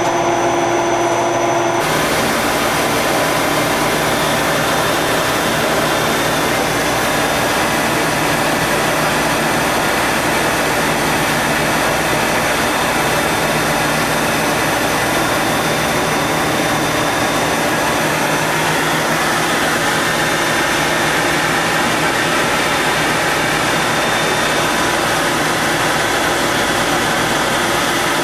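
Cast polypropylene film extrusion line running: a steady, loud mechanical whir and hiss with a faint hum, changing abruptly about two seconds in.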